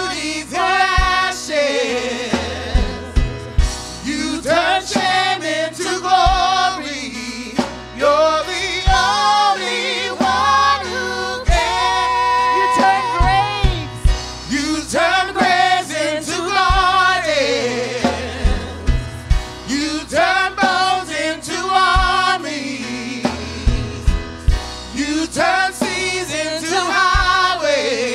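Live gospel worship song: a woman and a man singing into microphones, backed by a drum kit with a regular kick drum and a keyboard.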